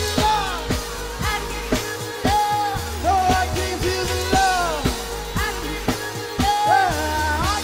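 Live hip-hop band playing: a woman sings long, sliding notes without clear words over deep bass, drum kit and electric guitar.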